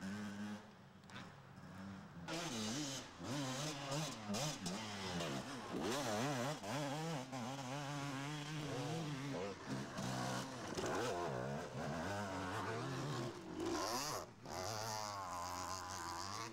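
Enduro dirt-bike engines revving up and down as the bikes ride off along a woodland trail, the pitch rising and falling with the throttle.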